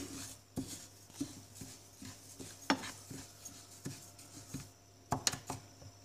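Wooden spoon stirring flaxseeds as they dry-roast in a pan: a soft rustling scrape of the seeds, with irregular light knocks of the spoon against the pan.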